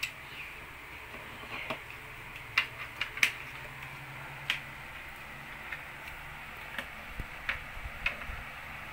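Chunky plastic toy building bricks clicking and clacking as they are picked up, pressed together and set down on a wooden tabletop. The clicks are irregular and come singly, the sharpest ones about three seconds in, over a faint steady hum.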